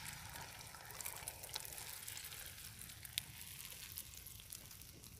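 Beaten egg sizzling in a frying pan over a wood campfire, a steady quiet hiss, with a few sharp crackles from the burning logs.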